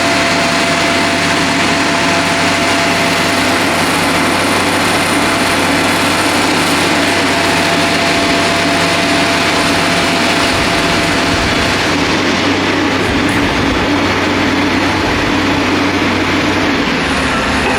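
A diesel engine running steadily close by: a loud, even mechanical drone with a steady low hum under it.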